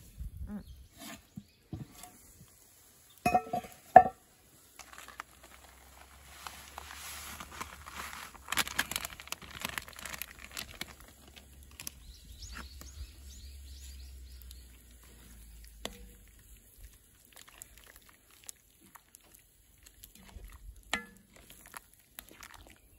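Camp cookware being handled over a wood fire: two sharp ringing metal clinks a few seconds in, then several seconds of crinkling and rustling. After that come scattered light knocks as the curry in the cast-iron Dutch oven is worked with a wooden spoon.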